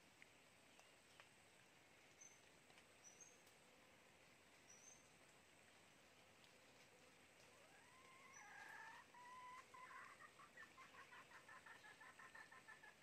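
Faint red junglefowl call: a rooster's short crow about eight seconds in, followed by a quick run of clucks, about five a second.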